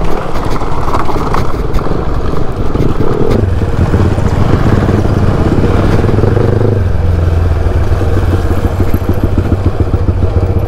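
Motorcycle engine running while riding a rough dirt track. The engine note drops about two-thirds of the way through as the bike slows.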